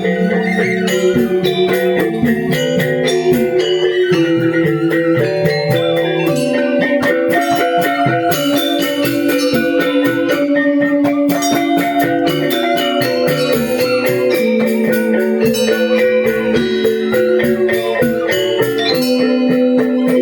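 Balinese gamelan angklung ensemble playing a tabuh kreasi: bronze metallophones ringing in fast, dense strokes over held lower notes.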